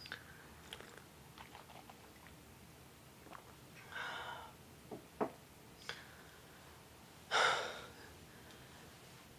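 A person's quiet breathing with faint mouth clicks. There are two audible breaths, a short one about four seconds in and a louder one, like a sigh, a little past seven seconds.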